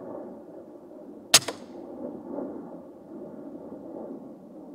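A single air rifle shot about a second and a half in: one sharp crack with a short tail, over steady low background noise.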